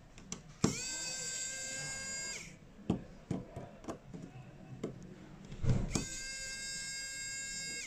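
A small electric motor whines steadily twice, about two seconds each time. Each run starts with a click and a brief rise in pitch, and a few short clicks and taps of handling fall between the runs.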